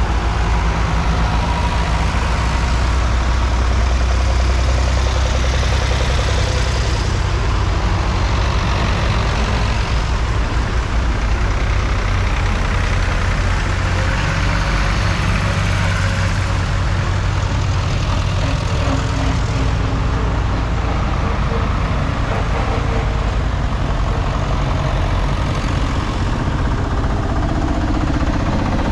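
A procession of vintage tractors driving past one after another, their engines running steadily low and loud, each swelling and fading as it passes.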